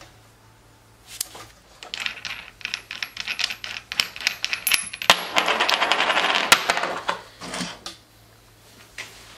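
Small metal parts clinking and rattling against each other as an angle grinder's head is taken apart by hand. Scattered sharp clicks start about a second in and thicken into a loud, rapid clatter around the middle. It stops near the end.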